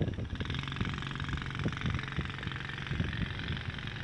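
Small single-cylinder four-stroke engine of a 119.1cc youth ATV running steadily as the quad drives across a field, with a few low thumps mixed in, the loudest about the start.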